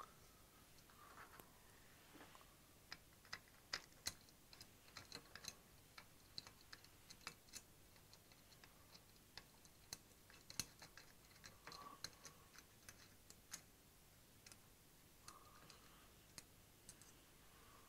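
Faint, irregular small clicks and taps of small metal parts and hand tools being handled while a washer and screw are fitted to a CNC lead-screw bearing support.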